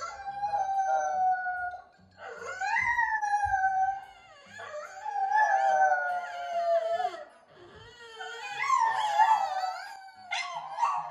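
French bulldog howling: a run of long, drawn-out howls about two seconds each, sliding up and then down in pitch, with short breaks between them and a shorter howl near the end.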